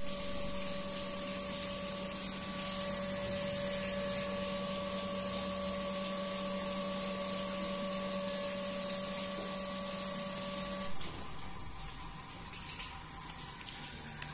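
Hitachi CT-P250F jet water pump running with a steady electric-motor hum and a high hiss. The owner says that after more than 25 years of use it still runs quietly. The hum cuts off about eleven seconds in, leaving a fainter hiss.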